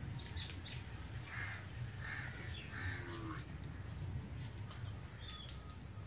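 Crows cawing: a few harsh caws in the first half, with small birds chirping faintly and a steady low rumble underneath.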